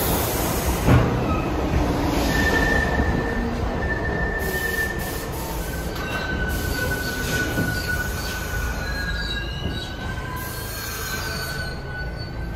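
New York City subway train rolling into the station and slowing, its steel wheels squealing on the rails in several steady high tones over a running rumble, with a single knock about a second in.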